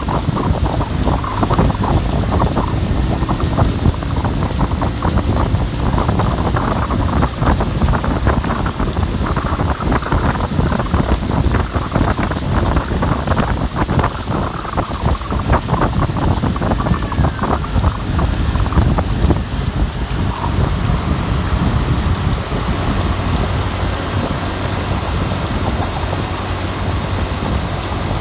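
Rain falling in blowing wind, a dense steady hiss full of small crackles over a heavy low rumble. About two-thirds of the way through, the crackles thin out and the sound becomes smoother.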